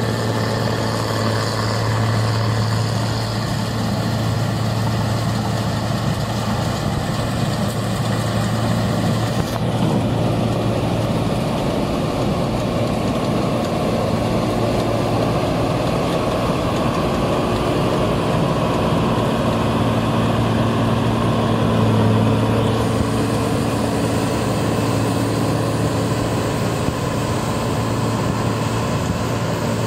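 New Holland combine harvester running steadily while it cuts and threshes rice, its diesel engine a constant low hum under dense machinery noise.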